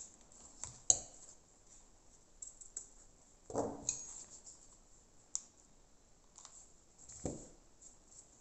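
Scattered small clicks and short handling noises of hands working with satin ribbon and craft tools such as scissors, with a sharp click about a second in and a few softer ones after.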